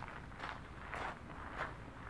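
Footsteps crunching on a gravel yard at a steady walking pace, about two steps a second.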